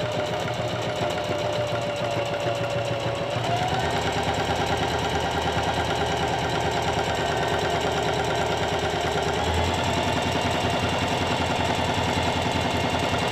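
SINGER CP6350M sewing machine stitching fabric, its motor whining over a rapid needle rhythm. It speeds up in two steps, about three and a half seconds in and again near ten seconds.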